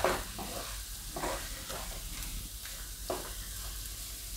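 A spatula stirring and scraping grated fresh turmeric sabzi around a steel kadhai over a light sizzle, with a few louder scrapes. The stirring keeps the turmeric from sticking to the bottom of the pan.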